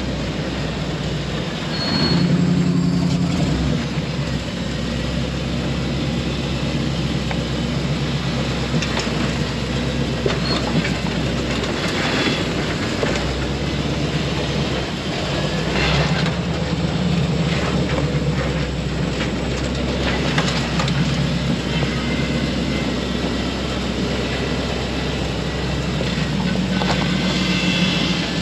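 Off-road recovery rig crawling slowly over sandstone ledges, picked up by a camera under the vehicle: a low, steady engine drone with scattered knocks and creaks from the suspension and tires working over rock.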